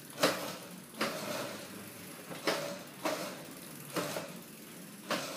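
Razor MX350 electric mini dirt bike's chain-driven motor whirring in about six short, uneven surges as the throttle is worked in tight turns.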